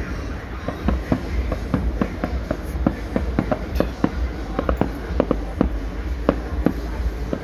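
Fireworks going off: an irregular, rapid string of sharp bangs and pops, several a second, over a steady low rumble.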